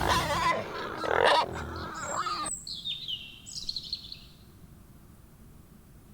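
A rough animal call that cuts off abruptly about two and a half seconds in, followed by a bird's high-pitched chirps that fade out within two seconds.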